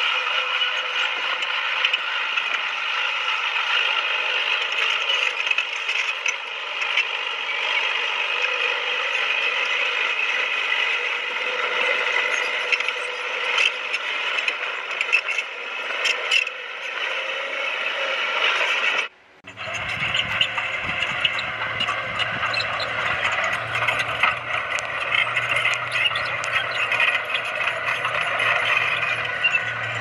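Crawler bulldozer at work: steady metallic clatter and squeal of its steel tracks over the running diesel engine. About two-thirds of the way through, the sound drops out for a moment, then resumes with a low engine hum added.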